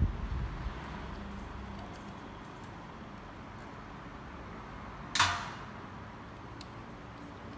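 Bench work on a common-rail high-pressure fuel pump being taken apart: a low knock at the start, then one short, sharp hiss-like scrape about five seconds in, over a steady faint background hum.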